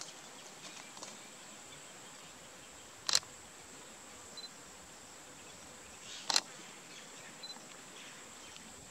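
Grassland ambience: a steady high-pitched insect whine with a few faint short chirps, broken twice by a sharp click about three seconds apart.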